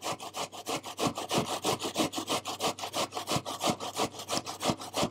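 An onion being grated on the fine side of a metal box grater: a quick, even run of rasping strokes, several a second.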